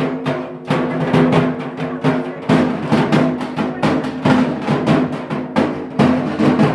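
Drums beating in a fast, loud, continuous rhythm over a steady held tone.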